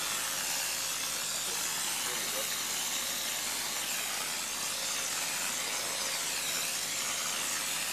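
Steady hiss of compressed air from a RimSpray GFRC Mini spray gun spraying glass-fibre reinforced concrete.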